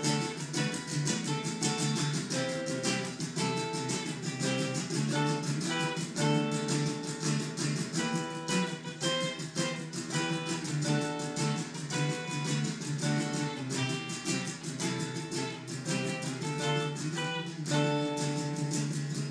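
Acoustic guitar strummed in a fast, steady rhythm, playing chords without singing.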